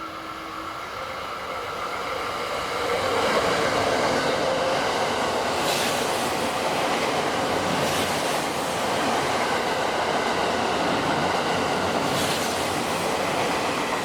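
Limited express train passing through a station at speed, building in from about two seconds in and running loud and steady with short high-pitched flares a few times. The sound cuts off abruptly at the end.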